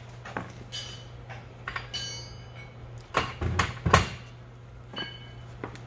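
Metal tools and pump parts clinking and knocking during hand assembly of a pump's lower seal, with short metallic ringing and a cluster of heavier knocks about three to four seconds in, over a steady low hum.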